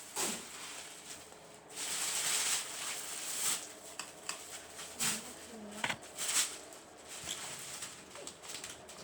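Irregular rustling and scratching with a few clicks, and some short, soft calls from a pet parrot, mostly around the middle.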